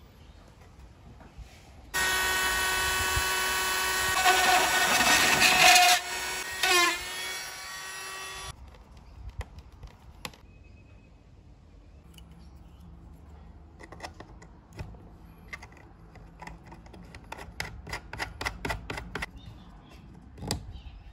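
Small electric screwdriver whining for about six seconds as it drives a screw into the base of a plastic mount, its pitch dipping under load near the end, then stopping abruptly. Later comes a run of small clicks and taps.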